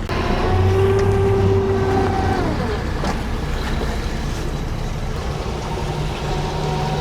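Boat engine running under power, then throttled back about two and a half seconds in, its pitch dropping and settling into a lower, steady run.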